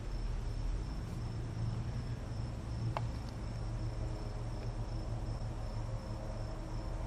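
A steady high-pitched insect chirring, typical of crickets, over a low outdoor rumble, with a single short click about three seconds in.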